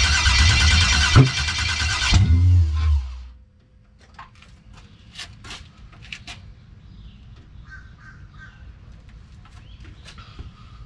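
Starter cranking a 1989 box Chevy's engine, which turns over but doesn't fire, with one sharper catch about a second in, as if it wants to start; the cranking stops about two seconds in. After that, crows cawing.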